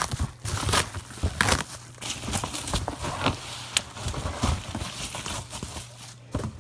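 Packaging being handled and opened by hand: crinkling and rustling with irregular sharp crackles.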